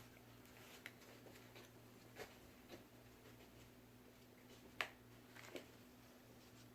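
Near silence with a low steady hum and a few faint, sharp clicks of plastic toy-track and Lego pieces being handled, the clearest a little under five seconds in.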